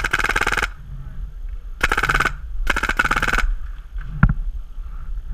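SmartParts Ion electropneumatic paintball marker firing three rapid strings of shots, the first and last a little under a second long, then a single sharp knock about four seconds in.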